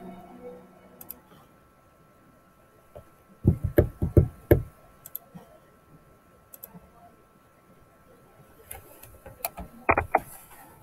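A quick cluster of about five knocks, then a couple of sharper clicks near the end: someone handling a computer at a desk, clicking through applications.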